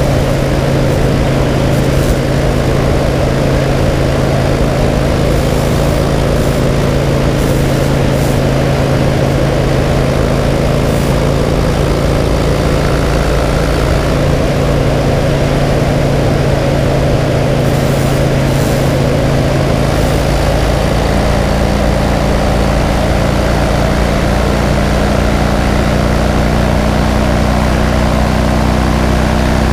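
2009 Harley-Davidson Crossbones' Twin Cam 96 V-twin running steadily at road speed, with wind rushing past. The engine note changes about twenty seconds in.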